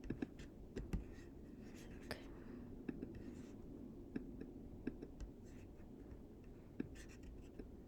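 Faint, irregular clicks and light taps of hands working a computer, over a low steady hiss.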